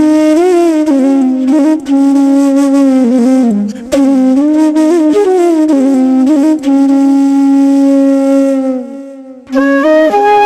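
Solo flute melody with long held notes and pitch bends, breaking off briefly about nine seconds in and then resuming.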